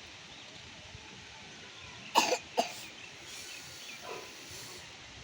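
Two short, sharp coughs about half a second apart, a little past the middle, over a faint steady hiss.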